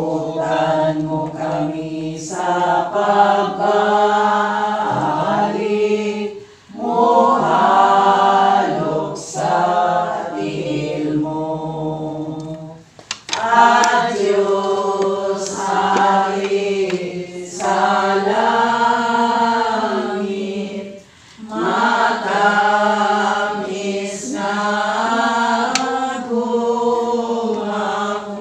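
A group of singers singing a devotional hymn in Cebuano, in phrases several seconds long with short breaks between them.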